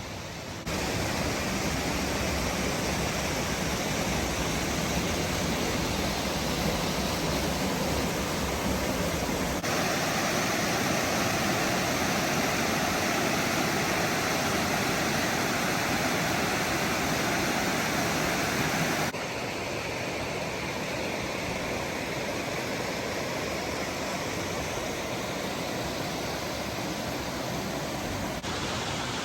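Steady rush of fast-flowing water, a brook or cascade, heard in several short takes that change abruptly in loudness and tone.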